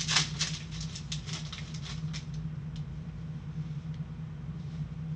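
A foil trading-card pack wrapper crinkling and tearing as it is pulled open: a quick run of crackles, loudest at the start, that dies away about two and a half seconds in. A steady low hum runs underneath.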